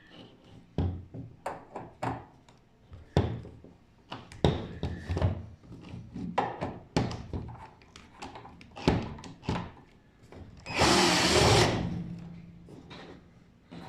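Clicks, taps and knocks of tools and screws on a microwave oven's metal case as it is taken apart, with a louder rushing scrape about a second long near the end.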